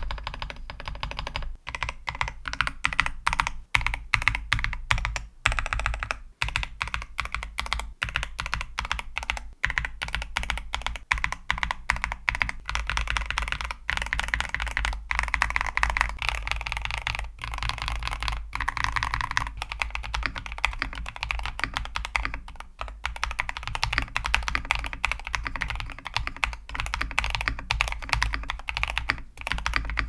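Typing test on a tray-mount Keychron V5 mechanical keyboard with Wuque Studios Aurora Clear switches, Keychron Pixel Universe OSA dye-sublimated keycaps, tape and PE foam mods and lubed, Holee-modded stabilizers. A steady, dense run of keystrokes with a couple of brief pauses.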